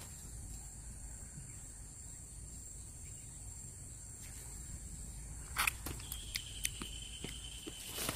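Steady high insect buzz in undergrowth. From about five and a half seconds in, a run of light clicks and rustles.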